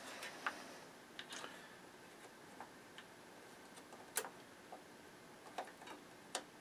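Faint, scattered small clicks and taps from multimeter test probes handled against an amplifier's circuit board, the sharpest a little past four seconds in.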